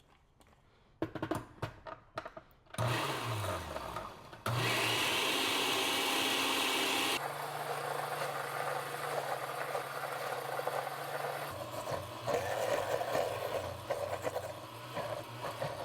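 Countertop blender blending pesto of basil and walnuts. A few clicks, then the motor starts about three seconds in and runs loud and steady for a few seconds. It then drops to a lower, steadier hum with uneven churning as the thick mixture turns over.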